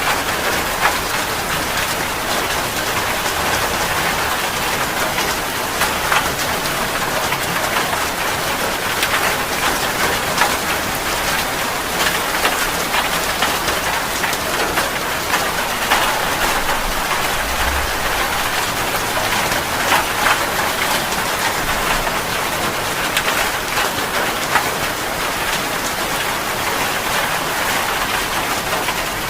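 Heavy rain falling steadily, a constant hiss with many separate drops pattering on a surface.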